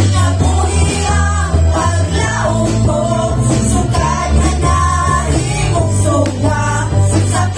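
Live worship band playing a Cebuano worship song: women singing the lead over electric guitar, bass guitar, keyboard and drums.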